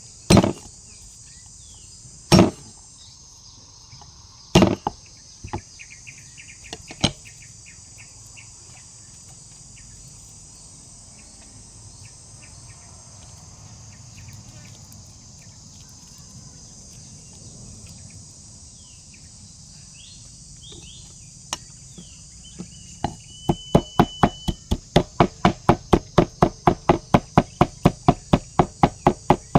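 A knife or cleaver chopping on a wooden cutting board: a few separate hard knocks in the first seven seconds, then from about three quarters of the way in a fast, even run of chops at about four a second. Insects keep up a steady high chirring throughout.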